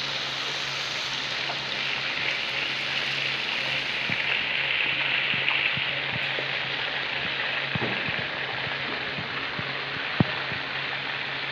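Chicken livers sizzling in their juices in a pan, a steady hiss with scattered small pops and crackles. A steady low hum lies underneath, and a single sharp click comes about ten seconds in.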